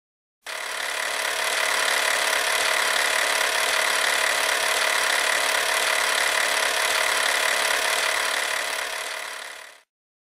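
Vintage cine film mechanism whirring steadily, a mechanical film-reel running sound that starts about half a second in and fades out near the end.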